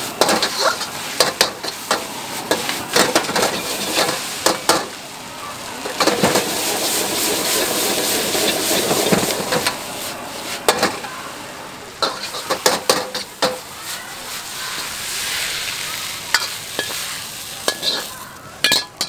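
Stir-fried noodles sizzling in a wok over a high gas flame, with a metal ladle scraping and clanking against the wok in repeated sharp strikes.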